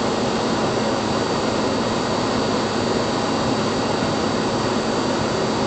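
Steady, loud turbine roar with a thin high whine, typical of aircraft ramp noise.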